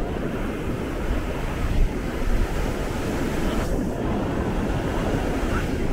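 Ocean surf washing onto a sandy beach, with wind rumbling on the microphone; the sound swells briefly about two seconds in.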